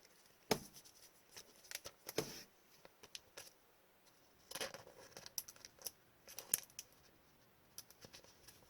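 Trading cards and plastic card sleeves being handled on a table: scattered short clicks, snaps and rustles.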